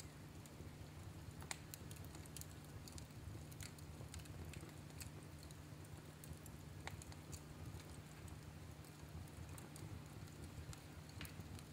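Fire crackling in a fireplace: faint, irregular pops and snaps over a low, steady rumble.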